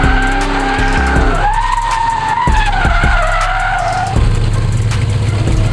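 Small pickup truck drifting in circles, its tires squealing in long wavering tones over the engine. About four seconds in the squealing stops, and the truck's engine is heard running steadily close by.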